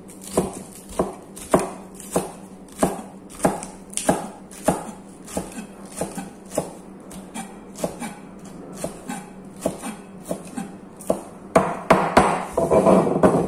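Large kitchen knife chopping a green vegetable on a cutting board: single chops about every half second, ending in a quicker, louder flurry of chops.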